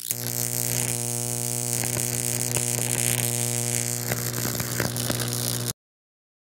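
Neon-light buzz sound effect: a steady electrical hum with a hissing, sparkling top and scattered crackles, cutting off suddenly near the end.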